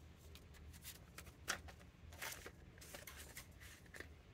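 Faint, scattered rustles and light ticks of paper bills and a clear plastic binder pocket being handled, with one slightly sharper tick about a second and a half in.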